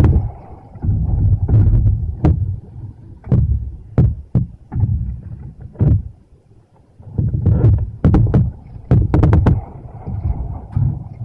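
Typhoon wind buffeting the microphone in irregular gusts, with sharp knocks and clatters scattered through it and a short lull near the middle.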